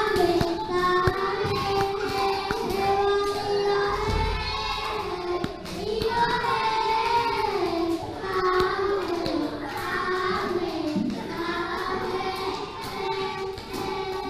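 A young child singing a song solo, holding and sliding between notes, with classmates clapping along.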